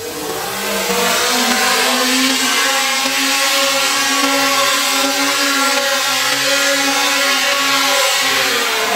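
Electric 775 DC motors spinning propellers, a whirring whine with a hiss of rushing air. They spin up over about the first second, then run at a steady speed.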